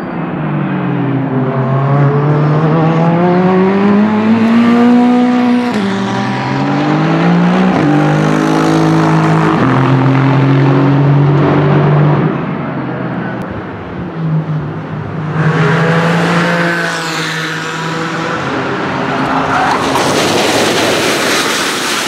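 Race car engines running hard, the pitch climbing and breaking at each gear change. An Aston Martin Vantage GT3 is heard first, then another car. Near the end, a car runs off into the gravel trap, with gravel crunching and spraying under its tyres.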